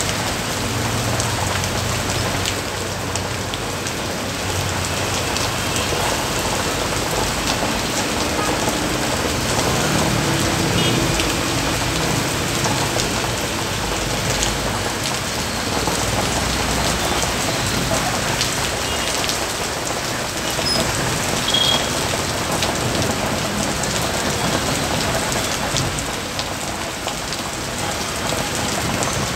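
Heavy rain pouring down on paving and parked vehicles: a steady, dense hiss full of fine drop ticks.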